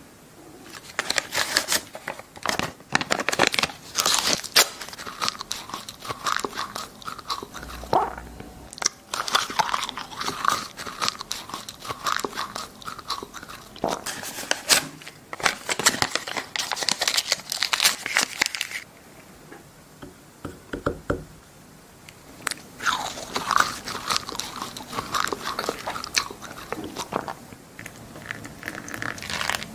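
Paper banknotes being handled, folded and crumpled, making loud crunching, crinkling noises in three long bursts with short pauses between.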